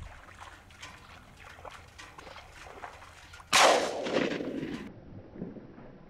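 A single shotgun blast about three and a half seconds in, dying away over about a second.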